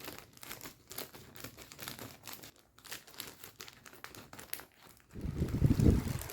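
Plastic packaging crinkling in quick, irregular crackles as model kit parts are handled, then a louder low rumbling knock about five seconds in.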